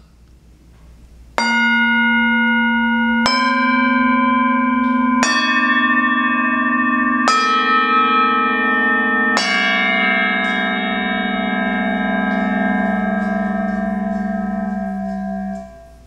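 UFIP Sheng bronze flat gongs struck with a mallet five times, about two seconds apart, each on a different pitch with a bright shimmering ring. The last one rings on for several seconds before a hand on the gong damps it and it stops suddenly.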